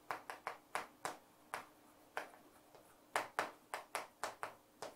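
Chalk on a chalkboard while Korean characters are written: a quiet, irregular run of short taps and clicks, with a pause of about a second midway.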